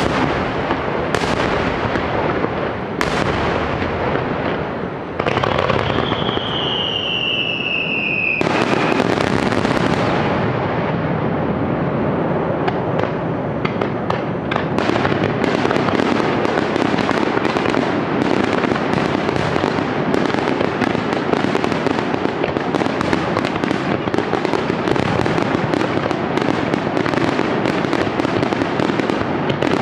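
Fireworks display: firework shells bursting a second or two apart, with a whistling firework sliding down in pitch about six seconds in. From about fifteen seconds the bursts turn into a dense, continuous barrage of rapid reports and crackling.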